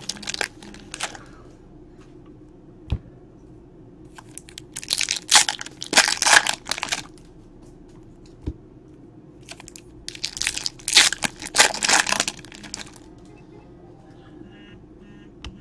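Foil trading-card pack wrappers being torn open and crumpled by hand, in three bouts of crinkling and tearing: at the start, about five seconds in, and about ten seconds in.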